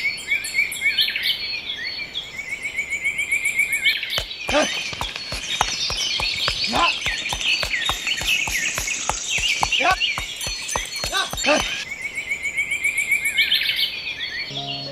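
Birds chirping and calling continuously. In the middle, for about seven seconds, a rapid run of sharp clicks or taps at roughly four a second cuts in and then stops.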